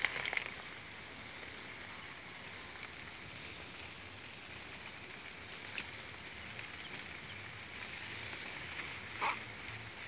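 Nylon cast net and grass rustling as a caught rohu is worked free of the mesh by hand, with a few short sharp clicks near the start, about halfway and near the end, over a steady high outdoor hiss.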